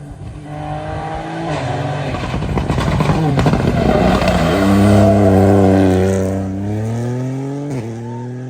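Rally car engine at hard throttle: the pitch drops as the car brakes and downshifts, then climbs as it accelerates past, loudest about five seconds in, with an upshift near the end.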